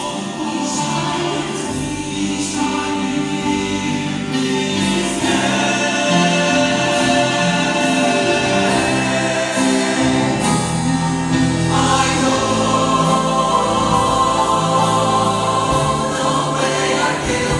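Show choir singing, many voices holding chords in harmony, growing louder about a third of the way in.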